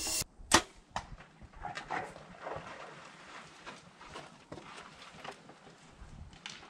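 A compound bow fired once: a single sharp crack of the released string about half a second in. After it come scattered lighter knocks and rustles.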